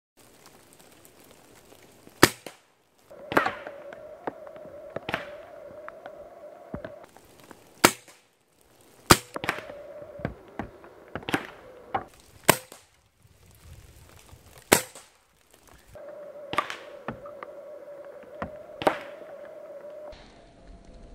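PCP air rifle firing at targets: about a dozen sharp cracks a second or two apart, pellets smacking into the targets. A faint steady hum comes and goes between shots.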